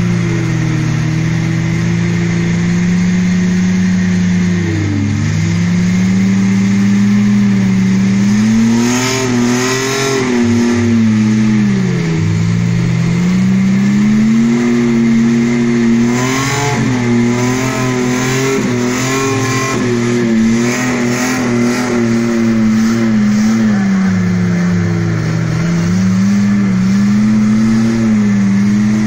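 Off-road 4x4 SUV engines revving hard under load in mud, the pitch climbing and dropping again and again, with another engine running steadily underneath.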